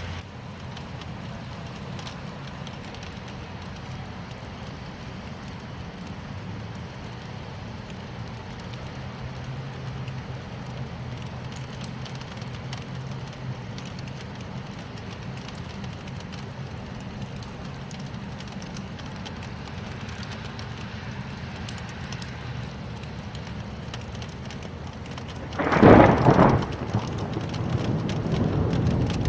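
Steady rain. About 26 seconds in, a sudden loud clap of thunder breaks in, followed by heavier rumbling.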